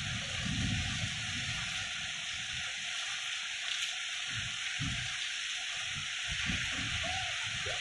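Heavy rain pouring down in a steady hiss, with irregular low gusts of wind rumbling on the microphone.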